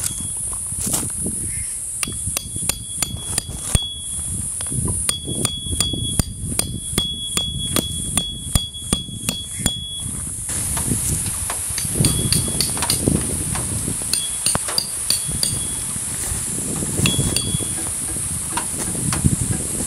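Metal tent pegs being hammered into the ground: a quick run of sharp strikes, about three a second, many with a short metallic ring, then a few scattered strikes later. A steady high hiss runs underneath.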